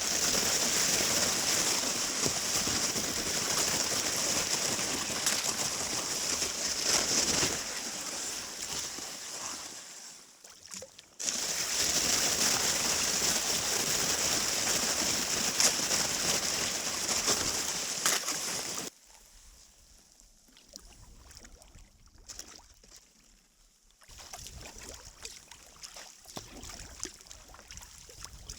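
Water rushing and sloshing around a kayak, a loud steady hiss with no engine or voice in it. It breaks off suddenly twice: it fades and jumps back loud a little over a third of the way in, then drops abruptly to faint lapping about two-thirds through.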